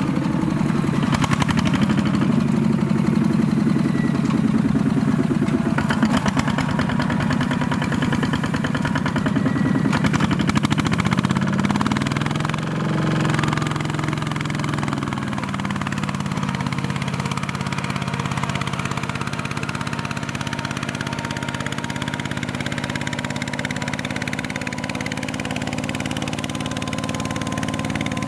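Single-cylinder Kubota diesel engine of a mini two-wheel tractor running steadily. About halfway through its pitch shifts as the engine speed changes, then it settles into a slightly quieter, even run.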